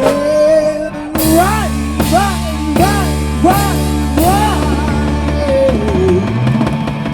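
Live rock band playing with drums, guitar and singing. About a second in, the band lands on a held low chord, and a rising-and-falling phrase repeats over it several times before sliding down.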